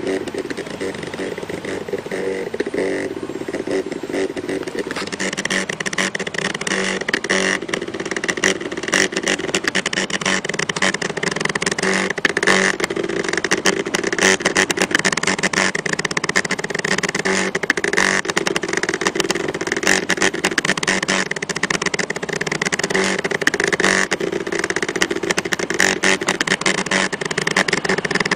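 Small desktop laser engraver's stepper motors buzzing with a dense rapid clicking as the laser head scans back and forth, engraving a picture into a PVC card. The sound gets a little louder a few seconds in and then holds steady.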